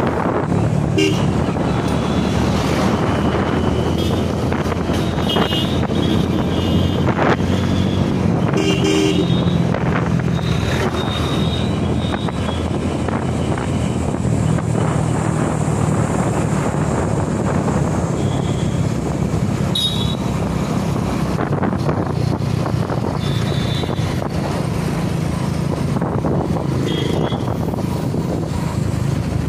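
Motorcycle engine running steadily while riding, with road and wind noise, and short horn beeps sounding several times through the ride.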